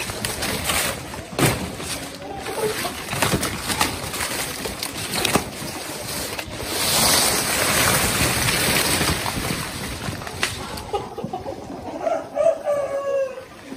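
Big green banana leaves and dry leaf litter rustling and crackling as they are pulled and dragged, with irregular snaps of stalks, loudest in a rushing stretch about halfway through. Near the end a few short calls from chickens.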